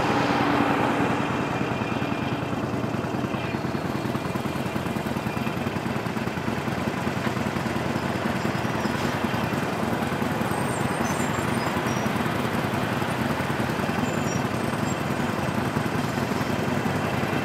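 Motorcycle engine running steadily on the move, under a constant rush of wind and road noise.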